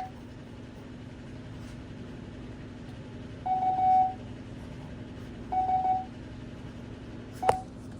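Morse code (CW) practice tones sent slowly at 5 words per minute: one steady pitch beeping, with a long dah a little before the middle, another about two seconds later, and a short dit near the end. A sharp click sounds with the dit, and a steady low hum runs underneath.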